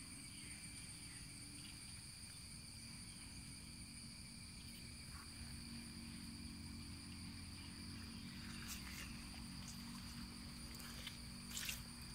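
Faint, steady chorus of insects, crickets or cicadas, holding several high thin tones over a low rumble. A few footsteps on wet ground near the end.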